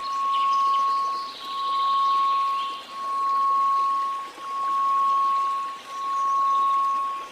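A steady 1098 Hz pure tone over faint white noise, swelling and fading in loudness about every one and a half seconds.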